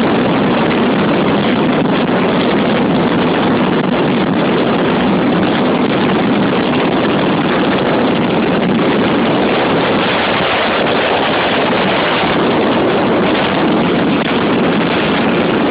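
Honda XR 250 Tornado's single-cylinder four-stroke engine running steadily under way, mixed with heavy wind rushing over the microphone.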